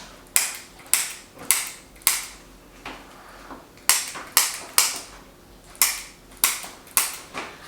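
Activator chiropractic adjusting instrument firing, about a dozen sharp spring-loaded clicks in three quick groups of three or four, as it delivers light impulse adjustments.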